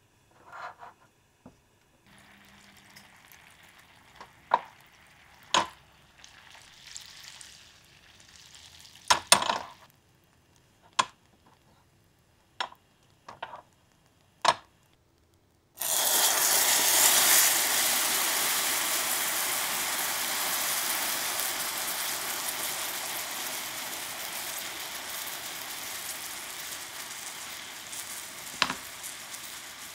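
Sugar syrup caramelizing in a small enamel saucepan on a gas burner, with a few sharp clicks and knocks as the pan is handled. About halfway through, cream goes into the hot caramel and it breaks into a loud hissing sizzle that starts suddenly and slowly dies down, with one knock near the end.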